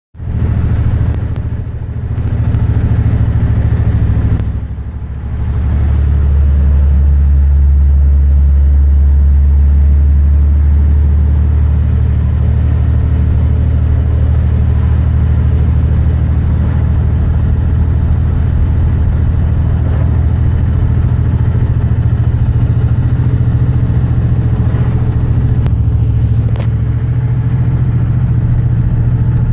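A 2006 Dodge Ram 2500's 5.9-litre 24-valve Cummins inline-six turbodiesel running, which the owner says has bad injectors. Its sound dips briefly twice in the first few seconds, then holds steady.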